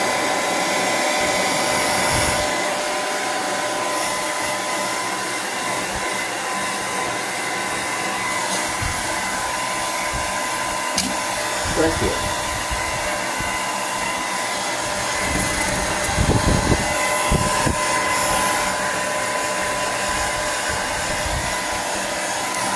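Handheld hair dryer blowing steadily, a rush of air with a constant whine over it. A few low bumps come through in the second half.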